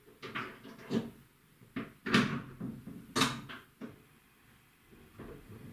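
A series of sharp knocks and clatters, like things being handled or a cupboard door being worked. The loudest come about two and three seconds in.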